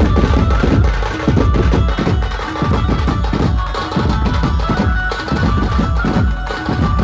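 Dhumal band playing loud, dense, fast drumming, with a held melody line above the beat.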